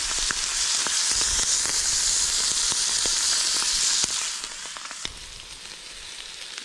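Chicken breasts and bacon sizzling on a hot steel barbecue plate and mesh grill over coals: a steady hiss with scattered pops and crackles. The sizzle drops noticeably about four seconds in.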